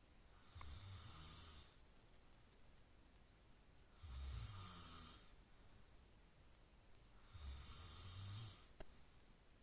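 A person snoring: three slow snores about three and a half seconds apart, each a low rumble with a breathy hiss.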